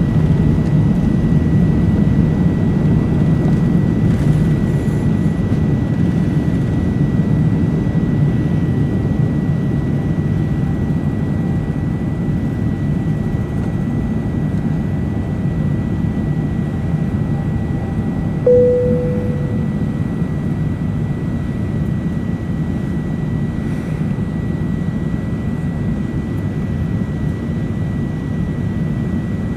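Steady cabin noise of an Airbus A380 under way, a low rumble of its Rolls-Royce Trent 900 engines and airflow heard from inside the cabin, with a faint steady high whine. A single cabin chime sounds about two-thirds of the way through and fades quickly.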